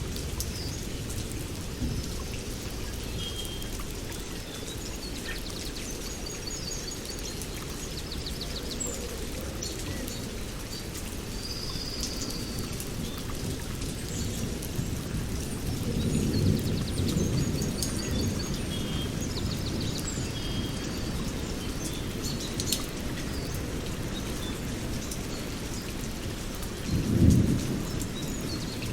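Birds chirping and trilling repeatedly over a steady low rushing noise of outdoor water or rain, with two louder low rumbles, one about halfway through and a short one near the end.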